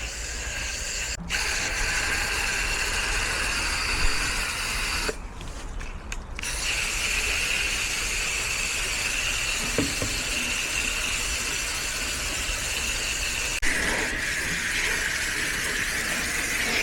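Water spraying from a hose nozzle, rinsing coil cleaner off an air-conditioner condenser coil: a steady hissing spray that cuts out briefly about a second in and again for about a second around five seconds in.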